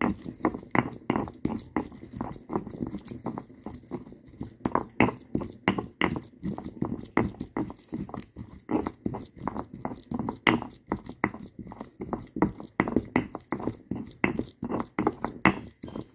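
Stone pestle grinding a chipotle chile in a stone molcajete: a steady run of short grinding and knocking strokes, about two or three a second.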